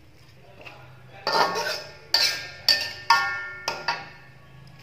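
Metal spatula striking and scraping against an aluminium wok while stir-frying: about six ringing metallic clangs, starting about a second in and spread over the next three seconds.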